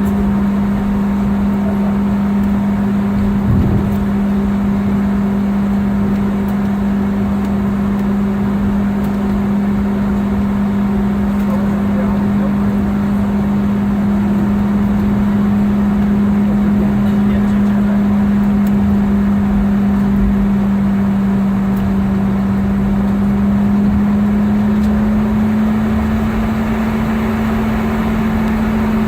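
Steady drone inside a Boeing 717's cabin, with a low hum that creeps slightly up in pitch near the end and a single brief bump about three and a half seconds in.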